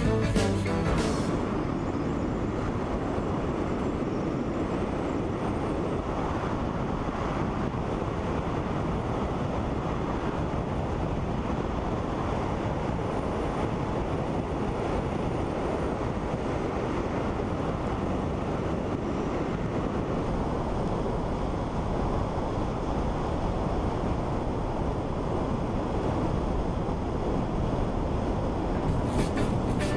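Steady wind rush on an outside-mounted camera's microphone, mixed with the engine and tyre noise of the car it rides on while driving. Music cuts out about a second in and comes back near the end.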